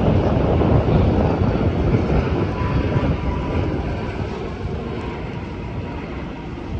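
Boeing 787-9 Dreamliner's twin turbofan engines on final approach, a loud low rumble that fades steadily as the airliner flies away.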